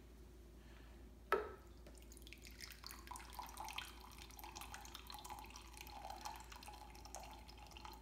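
Water trickling slowly from the spigot of a Berkey stainless-steel gravity water filter into a cup, a faint irregular dribble with one sharp click about a second in. The flow is weak because the filter is draining slowly.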